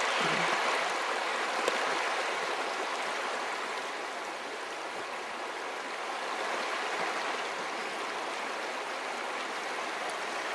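Shallow taiga river running over a stony riffle: a steady, even rush of water.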